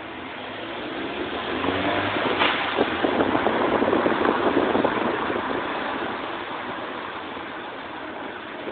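Car moving through an enclosed car park: engine and road noise swelling to a peak a few seconds in, then easing off.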